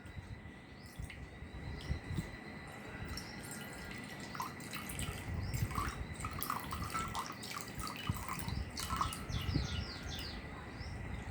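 Water poured into a glass bowl, with irregular splashing and dripping.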